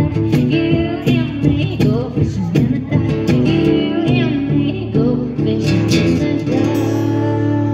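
Live acoustic guitar strumming a country-pop rhythm with a woman singing and tambourine hits, settling near the end into a long held, ringing final chord and sung note.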